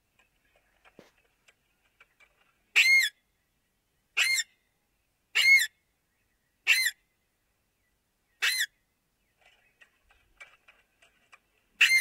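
Alexandrine parakeet giving a series of short, loud calls, six in all, spaced a second or two apart, with faint clicks between them.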